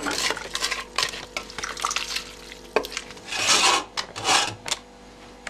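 Steel cooking pot clattering as its contents are stirred, then a pressure cooker lid set on and slid shut: a sharp clack about halfway through, followed by two metal scrapes.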